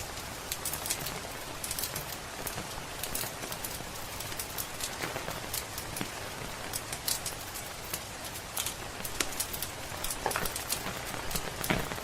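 Steady rain hiss with a wood fire crackling over it: frequent sharp, irregular pops and snaps from the burning logs.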